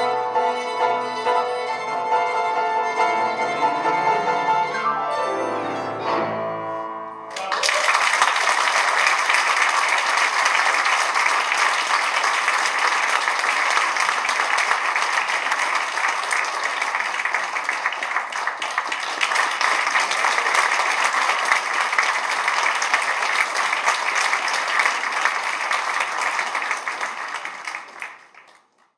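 A tango ensemble of violin, double bass and piano plays the closing bars of the piece, ending about seven seconds in. An audience then applauds, and the applause fades out near the end.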